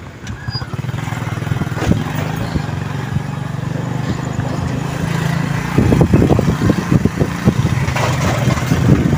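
Engine of a vehicle being ridden along a street, running steadily with a low hum; from about six seconds in a louder, uneven rumble joins it.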